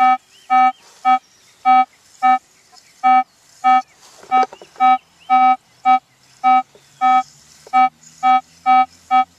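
Minelab E-Trac metal detector beeping about twice a second, the same short mid-pitched tone on each pass of the coil over a shallow target that reads close to a nickel. For so shallow a target, the signal is weaker than the owner expects.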